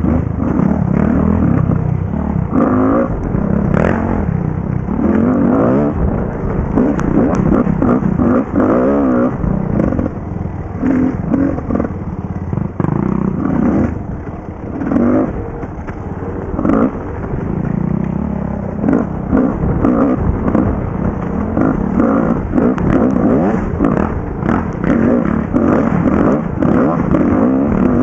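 Dirt bike engine heard close up from the rider's helmet, revving up and down again and again as the bike is ridden over a rough forest trail. Short clattering knocks from the bumps come through over it.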